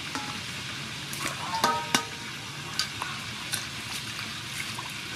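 Hands swishing and splashing mint leaves and cucumbers in water in a stainless steel bowl. A couple of sharp knocks come just before the two-second mark, one with a brief ringing tone, and a few lighter clicks follow.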